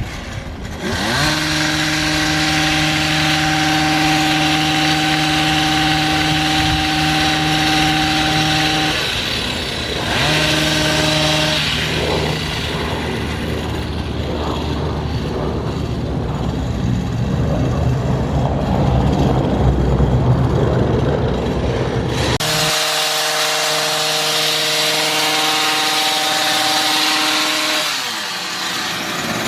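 A small engine of a gas-powered yard tool running at a steady pitch. It drops out briefly about nine seconds in, runs rougher and noisier through the middle, and then cuts abruptly to another steady-running engine tone.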